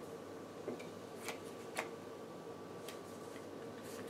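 Sleeved playing cards being handled and set down on a playmat: a few light, sharp clicks and taps at irregular times over a faint steady hum.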